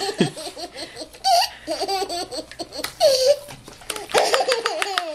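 Toddler laughing hard in several short bursts.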